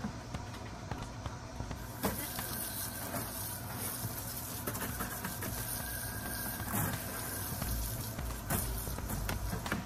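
Garden hose spray nozzle spraying water onto a wet dog in a plastic kiddie pool, a steady hiss that starts about two seconds in, with scattered small splashes and clicks.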